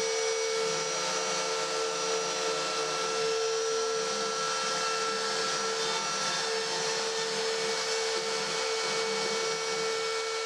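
A CNC router's spindle runs at a steady, high, whining pitch together with the rushing of a dust extractor drawing through the brush dust shoe, as the machine carves a pine board.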